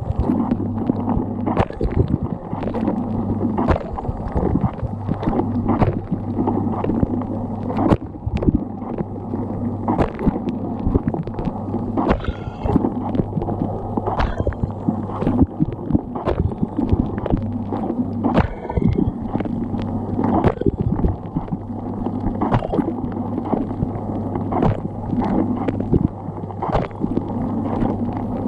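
Dishwasher running its wash cycle, heard from inside the tub: the circulation pump hums steadily while water from the spray arms splashes and drums irregularly against the racks and walls.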